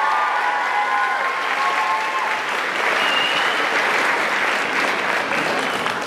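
Audience applauding steadily, with a few high cheers over the first couple of seconds.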